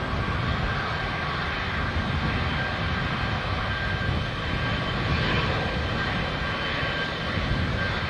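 Boeing 777's GE90 turbofan engines running as the jet taxis: a steady deep rumble with several high steady whine tones over it.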